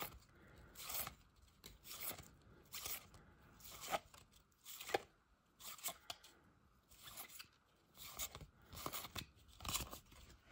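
Glossy cardboard trading cards slid one at a time off the front of a hand-held stack: a series of soft, short card-on-card swipes, about one every second or less, unevenly spaced.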